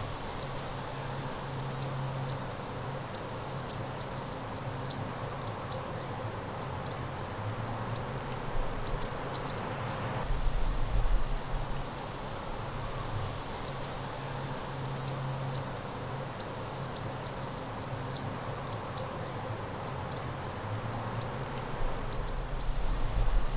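Outdoor ambience: wind rumbling on the microphone, gusting louder about ten seconds in and again near the end, with many short, high chirps of insects scattered throughout.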